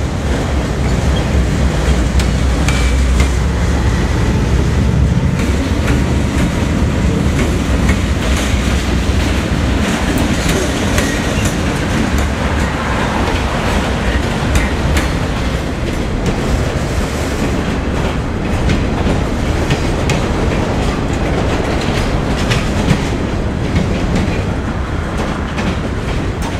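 Autorack cars of a CSX freight train rolling past close by: a loud, steady rumble and rush of steel wheels on rail, with irregular clacks as wheels cross rail joints.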